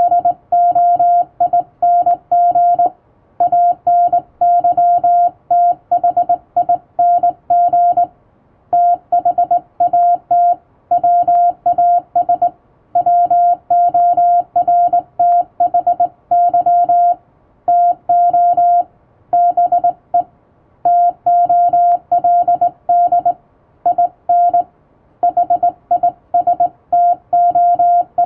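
Hand-sent Morse code on a straight key: a single steady beep keyed on and off in dots and dashes, with short gaps between letters and longer ones between words.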